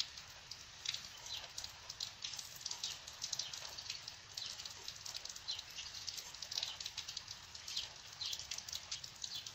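Cloth rustling with light, irregular scratches and ticks as hands smooth and handle folded cotton fabric and a ruler laid on it.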